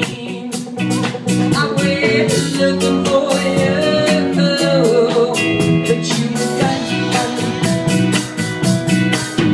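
Live rock band playing: electric guitars over a drum kit with steady cymbal hits, and a woman singing.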